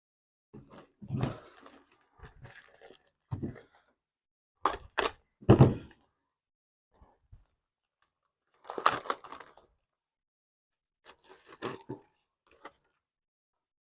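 Handling noise from work on a kerosene heater's wick assembly: a string of short rustles, scrapes and knocks with silent gaps between, the loudest knocks about five and a half and nine seconds in.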